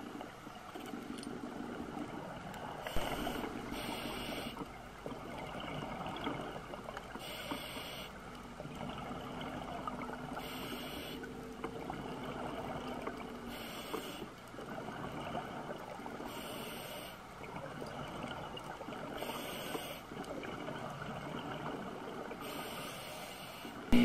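Scuba diver breathing underwater through a regulator: a hissing breath and a gush of exhaled bubbles recur about every three seconds over a steady underwater rumble.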